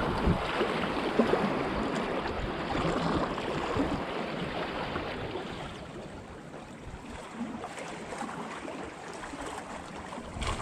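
Wind buffeting the microphone over choppy water lapping against breakwall rocks, a steady rushing noise that eases off about halfway through.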